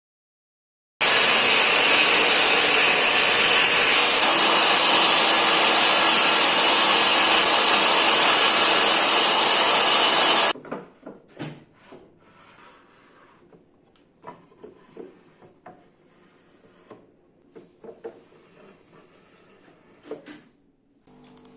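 A power tool runs loud and steady for about nine seconds, then cuts off abruptly, followed by scattered light knocks and clicks of wood being handled.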